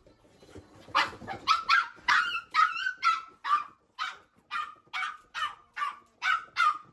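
Pet dog barking over and over, about two sharp barks a second, starting about a second in.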